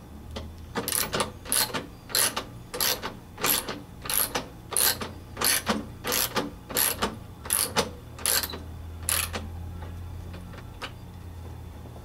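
Socket wrench ratchet clicking as it tightens a lawn mower wheel nut. There are about a dozen strokes at about three every two seconds, each back-swing a quick run of pawl clicks. They stop about nine seconds in, once the nut is snug.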